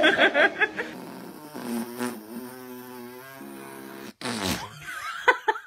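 A few quick vocal bursts, then a low, buzzy, steady sound like a blown raspberry, held for about two seconds, and short vocal bursts near the end.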